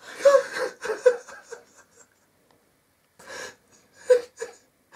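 A man's breathy gasps and whimpers, overcome with emotion. They come in two runs of short bursts with a pause of about a second and a half between.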